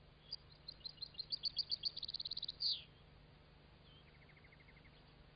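European goldfinches calling: short, high chirps that quicken into a rapid twitter, ending in a downward-slurred note, then a brief faint trill a little lower about four seconds in.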